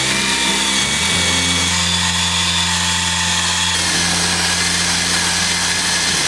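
Makita cordless drill spinning a wire cup brush against weathered wooden boards: a steady motor hum under a scratchy scouring hiss as the brush strips the old grey surface off the wood.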